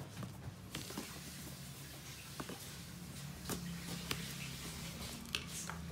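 A product box being handled: a few light scattered clicks and taps over a steady low hum.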